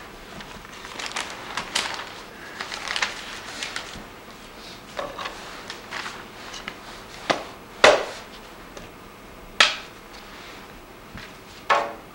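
Clicks, crackles and small knocks as oil paint tubes, a wooden palette and newspaper are handled on a glass-topped table, with three louder sharp knocks in the second half.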